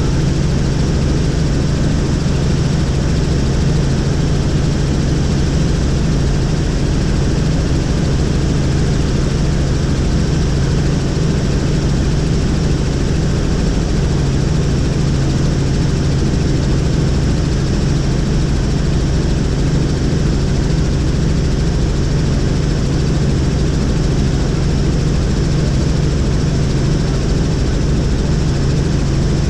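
Helicopter in flight: steady, loud engine and rotor noise with a strong low hum that holds level.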